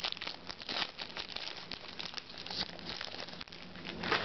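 Clear plastic card packaging crinkling and rustling in the hands as trading cards are handled, a dense run of small irregular crackles.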